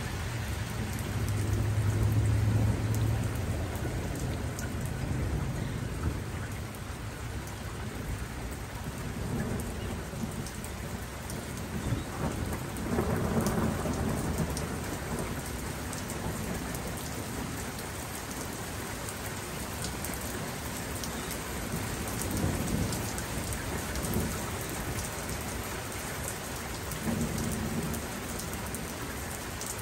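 Steady rain falling, with several low rolling rumbles of thunder; the loudest swells about thirteen seconds in.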